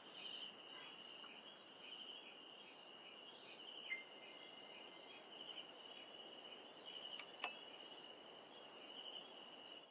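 Faint, steady chirping of crickets as a night ambience, with a soft chime about four seconds in and two light ticks a little after seven seconds.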